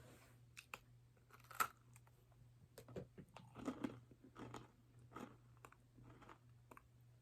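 Faint biting and crunchy chewing of a nut bar, a sharp crunch about a second and a half in followed by irregular crackly chews.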